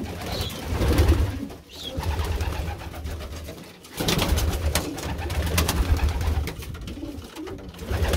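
Many domestic pigeons cooing together in a wooden loft, a low, throbbing, overlapping coo that goes on throughout.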